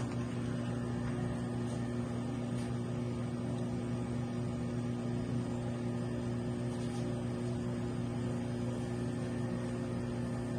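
Window-type air conditioner running with a steady low hum.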